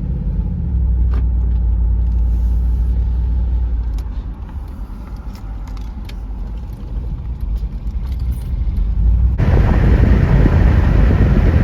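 A Jeep engine with a rod knock running while the vehicle is driven, a steady low rumble that eases off somewhat in the middle. About nine seconds in, a loud rushing hiss comes in suddenly over it.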